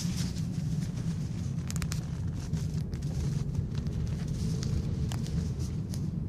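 Lada Vesta with a steady low rumble of engine and running gear, and a few short, sharp knocks: a quick cluster about two seconds in and two more near the end. The knock comes from the front of the car and its cause is unknown.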